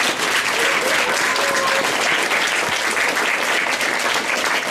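Theatre audience applauding steadily with many hands clapping.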